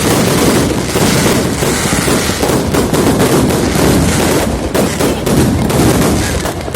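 Dense fireworks barrage: many overlapping bangs and crackles without a pause.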